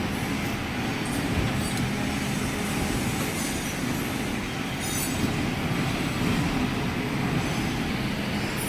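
Metal lathe running: a steady machine hum with irregular high metallic scraping over it.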